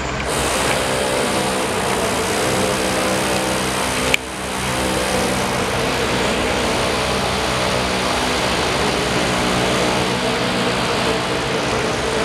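Steady machine noise, engine-like, with several steady low hums under a noisy wash. A sharp click about four seconds in, after which the level dips briefly and recovers.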